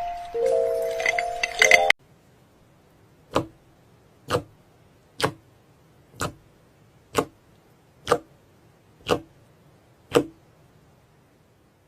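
Background music for about two seconds that cuts off suddenly, followed by eight sharp taps or clicks at a steady pace of about one a second, each with a brief low ring.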